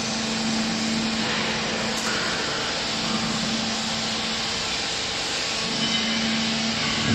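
Small hydraulic clothing baler running: the electric motor and hydraulic pump give a steady hum over a broad hiss, the hum a little stronger again near the end.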